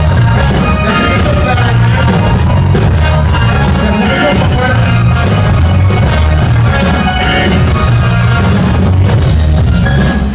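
Live band playing loud, bass-heavy music with drum kit and some singing, heard as an amplified concert mix.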